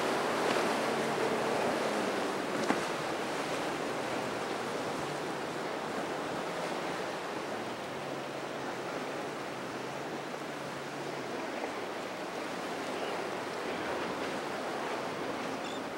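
Surf and churning water with wind on the microphone, over the low steady hum of outboard motors on center-console boats running through the chop. A single sharp tick about three seconds in.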